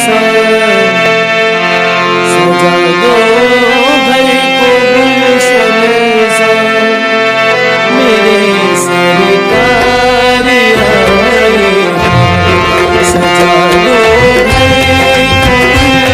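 Old harmonium playing a melody over held chords, its reeds sounding as steady, buzzy tones. From about ten seconds in, deeper low notes join in.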